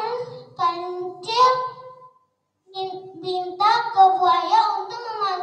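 A child singing a short tune in held notes, in several phrases with a brief break about halfway through.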